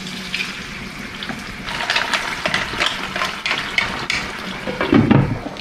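Pipis and a splash of white wine sizzling and steaming in a hot frying pan of olive oil, a steady hiss with many small clicks and crackles as the shells are stirred with a wooden spoon. A man's voice starts near the end.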